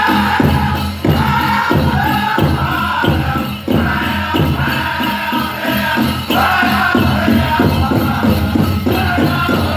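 Powwow drum group singing a high-pitched chicken dance song in unison over a steady, fast beat on a big drum, the voices dropping out briefly between phrases.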